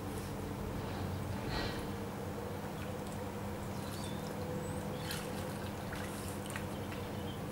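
Shallow river water trickling, under a steady low hum, with a few short high bird chirps about halfway through.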